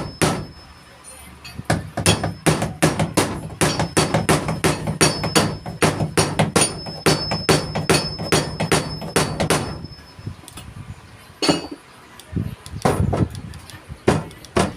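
Hammer driving nails into wood: a fast run of blows at about three a second, then a short pause and a few separate strikes near the end.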